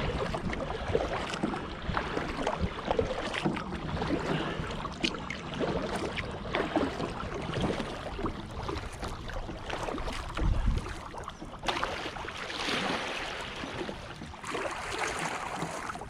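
Kayak moving on the water: paddle splashes and small knocks against the hull, over a low rumble of wind on the microphone, with a heavier bump about ten seconds in.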